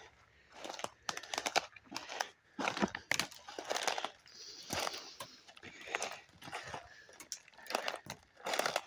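Footsteps crunching and rustling through dry fallen leaves and twigs on the woodland floor, in an irregular walking rhythm.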